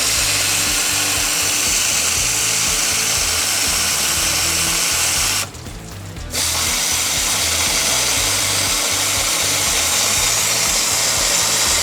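A loud, steady hissing rush as the car's air-conditioning system is blown out, flushing rusty, dirty water from it. It cuts out for about a second just past the middle, then starts again.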